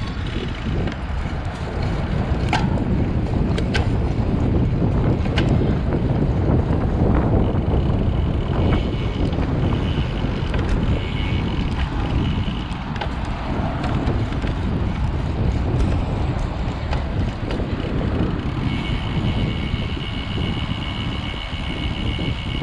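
Wind buffeting the microphone while riding a road bike, a steady low rush with a few light clicks early on. A thin high tone comes in twice, around the middle and again near the end.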